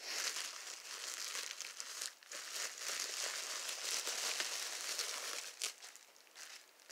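Plastic bubble wrap crinkling and rustling as it is handled and pulled open, dying down about six seconds in.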